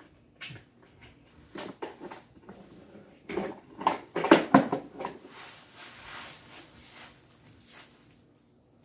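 Plastic toy garbage truck being tipped to dump cut-paper scraps onto a pile. Scattered plastic clicks and knocks build to a cluster of louder clacks about three to four and a half seconds in, followed by paper scraps rustling as hands work through the pile.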